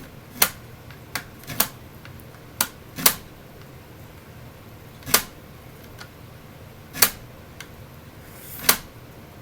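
Irregular sharp clicks and snaps of hard plastic being pried and cut at by hand, about eight in all, with quiet between them.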